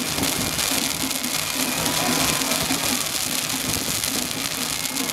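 A row of ground fountain fireworks spraying sparks with a steady hiss and dense crackle.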